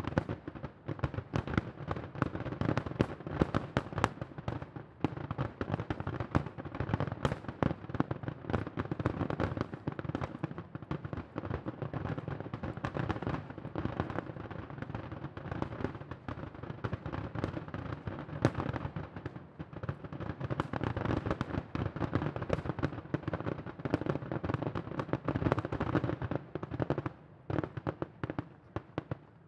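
Fireworks grand finale: a dense, rapid barrage of overlapping shell bursts and pops with no gaps, thinning out in the last couple of seconds.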